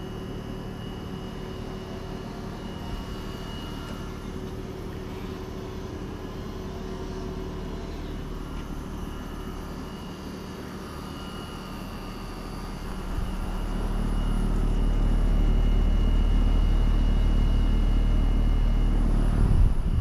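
Day & Night variable-speed heat pump outdoor units running in cool mode: steady condenser-fan air noise and compressor hum with a thin steady high tone. About two-thirds of the way through, a louder low rush of air builds up as the fan's discharge blows across the microphone.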